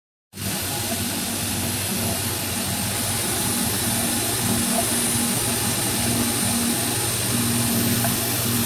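Techno HDS CNC router with an HSD spindle cutting a white plastic sheet, dust extraction running through the hose at the cutter. It makes a steady high whine over a rushing noise and a low hum, starting abruptly just after the beginning and holding an even level.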